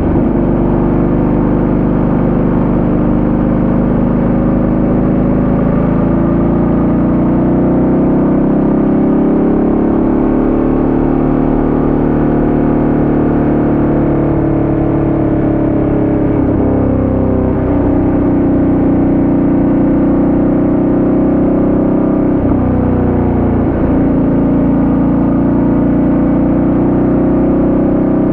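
Ducati Multistrada 1200S's V-twin engine running as the bike is ridden along. Its pitch wavers gently, and the engine briefly drops off twice in the second half.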